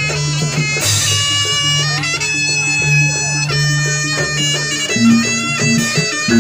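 Jaranan ensemble music: a shrill double-reed slompret plays a held, wailing melody over a low sustained tone and gamelan percussion. About five seconds in, a repeating pattern of struck notes comes in.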